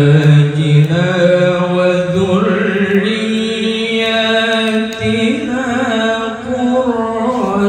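A young male qari reciting the Quran in the melodic tilawah style into a microphone, holding long sustained notes with ornamented pitch turns.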